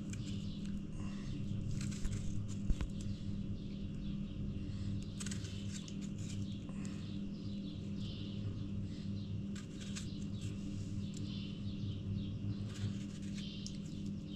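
A steady low hum with birds chirping over it, and two light knocks about two seconds in.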